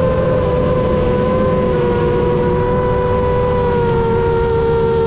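Long-range FPV quadcopter's brushless motors and propellers whining steadily over wind rush, the pitch slowly falling as the throttle eases.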